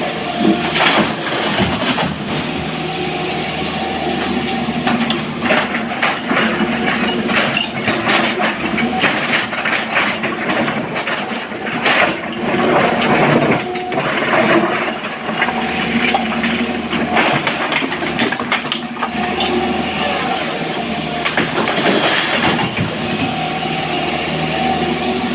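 SANY SY225 hydraulic excavator loading quarry stone into a dump truck: the diesel engine runs and swells under load in several cycles, while rocks crash and clatter again and again.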